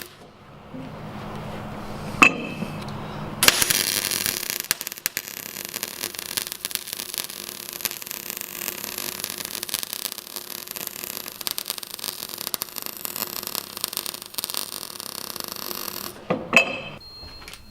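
Workshop tool noise: a sharp click, then a long stretch of steady noise full of small clicks, ending in a few metal clinks.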